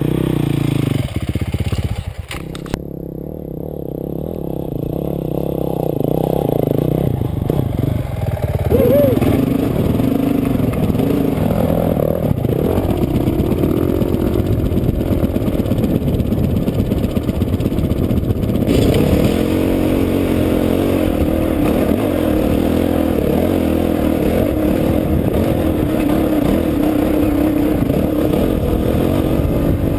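Dirt bike engine running, lower for the first few seconds and then building as the bike moves off, revs rising and falling.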